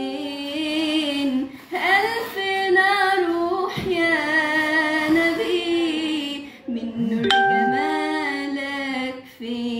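A young woman's voice singing an Arabic devotional song in praise of the Prophet (an ibtihal), drawing out long melismatic notes with a wavering vibrato and pausing briefly between phrases.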